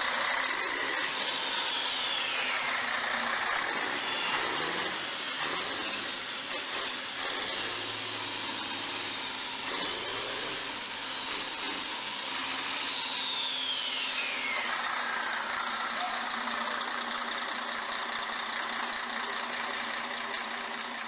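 Scania 113 truck's 11-litre six-cylinder diesel engine running steadily, with a high whistle that rises and falls several times.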